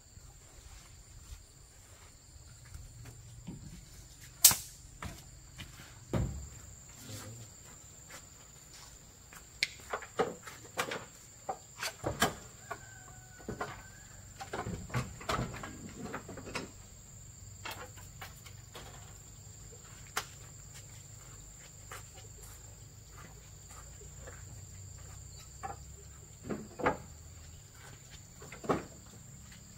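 Steady high-pitched insect chirring throughout, with scattered knocks and clatters from objects being handled: a sharp knock about four seconds in, a busy run of clatters from about ten to seventeen seconds, and a few more near the end.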